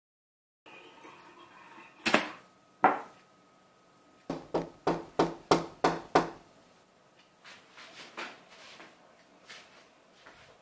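Knocking in a small room after a moment of silence: two knocks, then a quick even run of about seven knocks.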